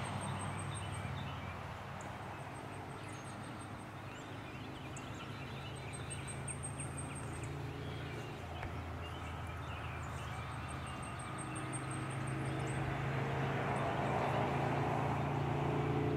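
A steady low hum that grows louder over the last few seconds, with short high-pitched bird trills every few seconds.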